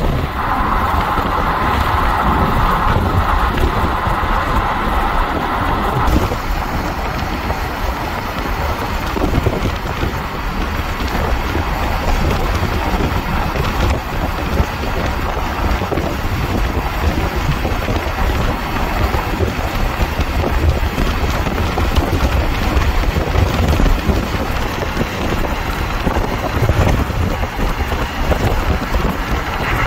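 Car driving at speed: a steady rush of wind buffeting the microphone over road noise. A brighter hiss runs for about the first six seconds and then cuts off suddenly.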